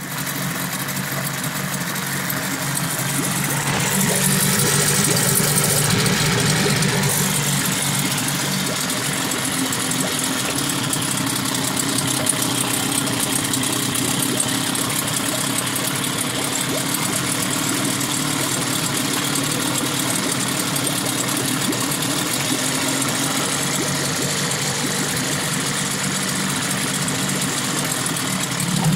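Evinrude 15 hp two-stroke outboard motor running steadily in a test tank, with water churning around its lower unit. It runs somewhat louder for a few seconds from about four seconds in.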